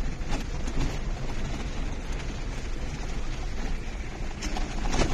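Vehicle driving, heard from inside the cabin: a steady low rumble of engine and road noise mixed with wind noise.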